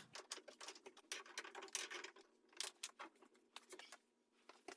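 Faint, irregular clicks and scrapes from adjusting the levelling feet of a stacked washer and dryer.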